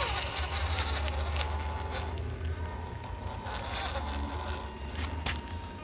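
Radio-controlled scale truck crawling over dirt: a steady low motor-and-gear hum with scattered light clicks of grit and gravel under the tyres.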